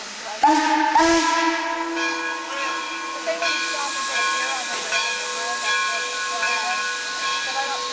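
Steam whistle newly fitted to steam locomotive HLC 17, blown in one long blast that starts about half a second in and sounds several pitches at once over a hiss of steam.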